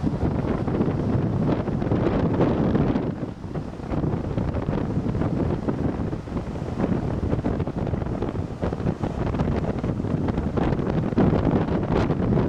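Strong wind buffeting the microphone, a rumbling gusty roar that swells and dips, over heavy storm surf breaking on the shore.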